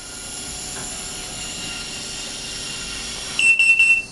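Electronic buzzer on an automated silkscreen machine sounding a loud, high, single-pitched tone in a rapid string of short beeps near the end. Before it there is a faint steady whine from the running machine.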